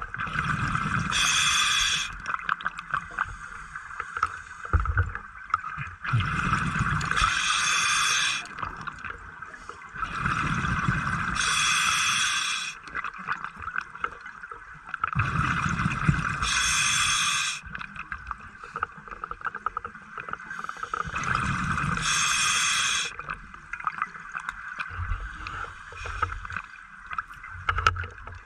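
A scuba diver breathing underwater through a regulator: five breaths, one about every five seconds, each a roughly two-second rush of regulator hiss and bubbling exhaust, over a steady hiss.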